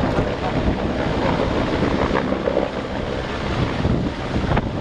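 Strong wind buffeting the microphone in a steady, rough rush, covering whatever else is there.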